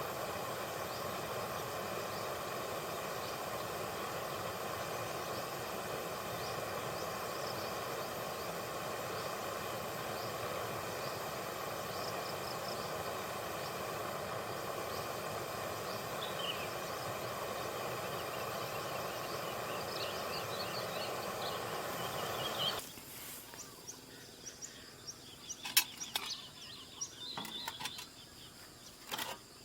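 Wild birds chirping over a steady outdoor background noise. About three quarters of the way through, the noise stops abruptly, leaving quieter bird calls and a few sharp clicks.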